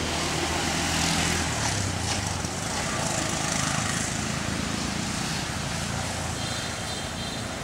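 A motor engine running steadily in the background, a low hum under an even hiss. Near the end, a high pulsing buzz joins in.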